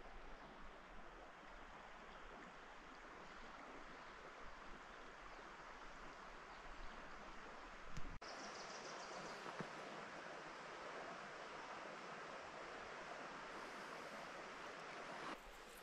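Faint, steady rush of a flowing creek, with a single short knock about eight seconds in, after which the rush is a little louder.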